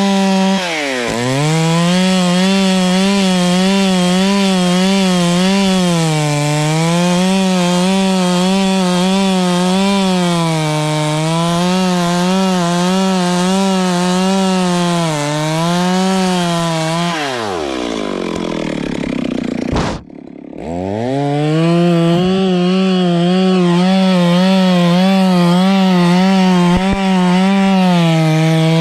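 Two-stroke chainsaw running at full throttle while cutting wood, its engine pitch wavering as the bar bites and bogs under load. About two-thirds of the way through the revs fall away to a near stop, then the saw is throttled back up and cuts on.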